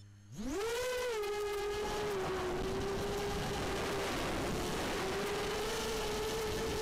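ImmersionRC Vortex 250 Pro racing quadcopter's brushless motors spooling up sharply at takeoff, rising quickly in pitch, then holding a steady whine with slight wavers as it flies. A constant rushing hiss runs under the whine.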